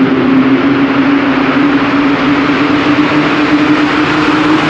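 Honda S660's small turbocharged three-cylinder engine running at a steady pitch with tyre and road noise, the car driving toward the camera through a concrete road tunnel, so the sound carries with a reverberant rumble.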